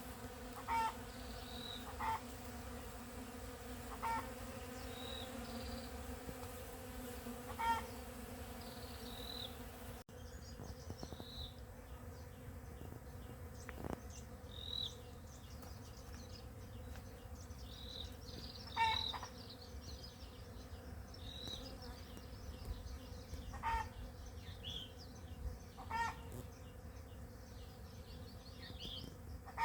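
Bees buzzing in flowering coffee blossoms, a steady hum, with birds chirping briefly every second or two over it.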